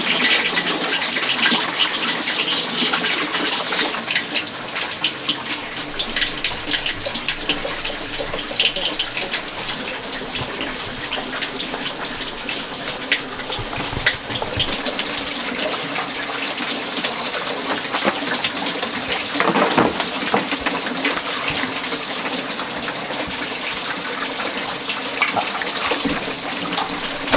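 Steady rush of running water, with small clicks and snaps from green vegetable stems being trimmed and snapped by hand.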